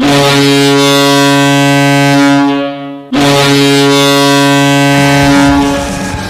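Kahlenberg KM-135 air horn used as an ice hockey goal horn, sounding two long blasts, the second starting about three seconds in. A rock goal song comes in under the end of the second blast.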